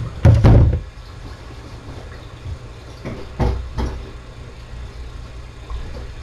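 A loud, low thump about half a second in, then two softer knocks near the middle, over a steady low rumble.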